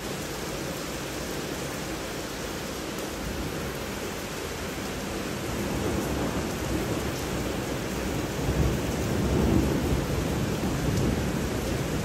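Thunderstorm: steady heavy rain hissing with low thunder rumbling underneath, the rumble swelling in the second half.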